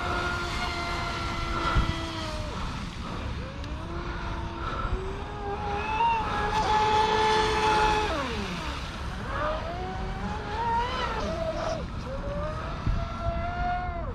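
Pro Boat Sonic Wake RC boat's brushless motor whining on 6S as the boat runs across the water, its pitch rising and falling with the throttle. The whine sweeps down steeply about eight seconds in, then climbs again.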